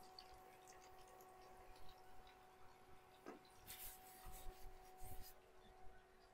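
Near silence in a kitchen: a faint steady hum with soft handling noises, including a brief paper-towel rustle a little before four seconds in and a few light taps and thumps.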